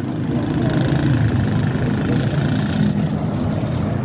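A car engine running on the road close by, a steady low rumble of traffic.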